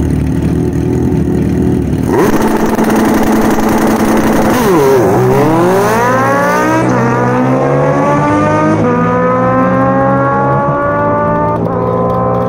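Two drag-racing motorcycles, a Suzuki Katana and a turbocharged Harley-Davidson V-Rod, running steadily at the start line, then launching hard about two seconds in. They accelerate away at full throttle, the engine pitch climbing again and again as they shift up through the gears.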